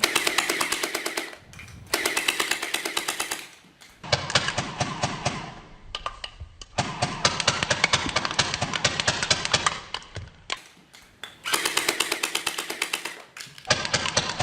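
Toy guns firing in rapid automatic bursts: fast, evenly spaced clicking cracks, about six runs of one to three seconds each with short pauses between.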